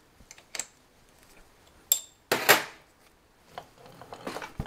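Metal lathe tooling being handled: a few sharp metallic clinks, a louder clatter about two and a half seconds in, then softer scraping and rattling near the end, as tool holders and cutting tools are swapped at the tool post.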